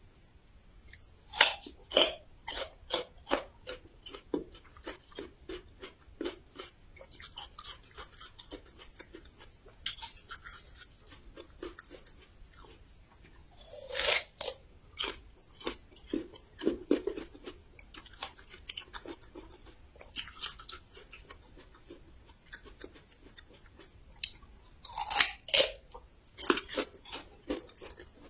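Close-up crunchy bites into raw young ginger, each followed by a run of crisp chewing: loud bites near the start, in the middle and near the end, with quieter gaps between.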